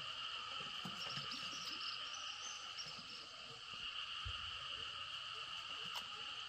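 Steady chorus of insects trilling in several continuous pitched layers, with a brief higher chirping about a second in.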